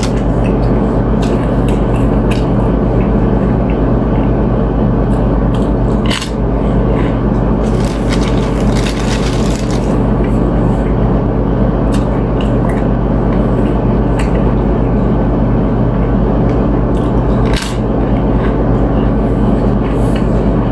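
Chewing and crunching on chips with ceviche, a few sharp crunches standing out, over a loud, steady low hum.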